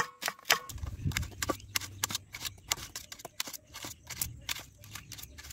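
A small knife chopping shallots and tomatoes in a stainless steel bowl, its blade clicking against the steel in a quick, irregular series of taps. A faint low rumble runs underneath.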